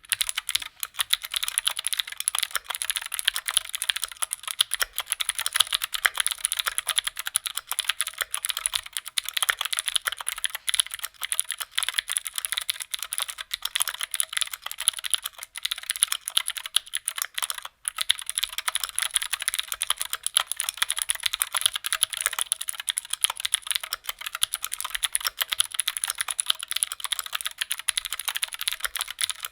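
Fast, continuous typing on a Keychron Q2 prototype mechanical keyboard fitted with clicky Gateron G Pro Blue switches, with one brief pause about 18 seconds in.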